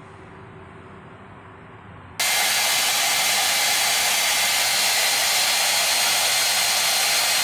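Hand-held hair dryer blowing, a loud steady rush of air with a faint high whine, cutting in abruptly about two seconds in.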